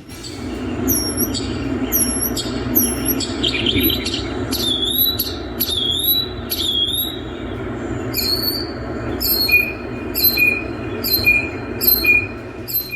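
A songbird giving a series of short, high calls, about two a second, changing to a different pattern about eight seconds in, over a steady low background rumble.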